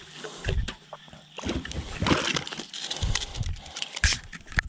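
Water sloshing and splashing as a hooked flathead catfish is brought to the side of the boat and landed, with scattered sharp knocks and low bumps from handling.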